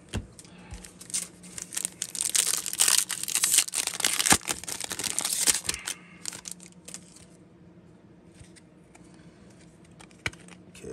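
A 2021-22 Upper Deck Series 1 hockey card pack's foil wrapper crinkling and tearing open for about four seconds, followed by soft clicks and shuffling as the cards are handled.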